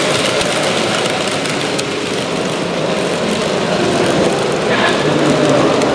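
Model train of passenger coaches rolling along the layout track: a steady rumble and hiss of small wheels on rails, over the general noise of a busy exhibition hall.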